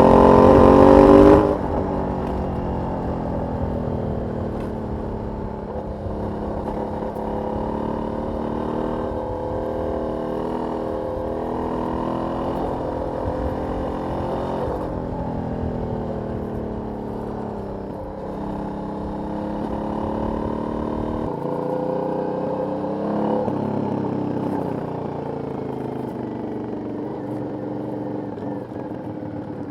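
Aprilia 900 V-twin motorcycle engine on its stock exhaust. It accelerates loudly for the first second and a half, then the throttle is cut and it runs on at a steadier pace, its note rising and falling slowly.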